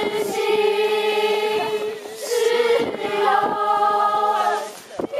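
A group of teenage girls singing together unaccompanied, in long held notes, with short breaks between phrases about two seconds in and near the end.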